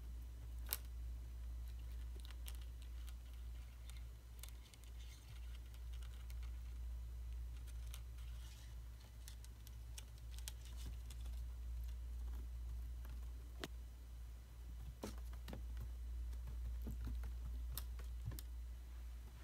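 Light, scattered clicks and taps on a hard tabletop as a kitten paws at a plastic fidget spinner, over a steady low hum.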